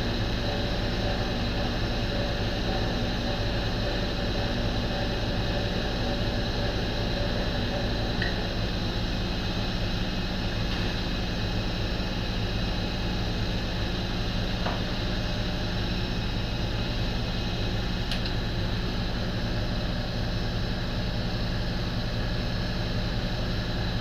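RF-31 mill/drill running steadily, its motor and spindle giving a constant hum with a whine. A few of its tones drop out about eight seconds in, and there are a few faint ticks later on.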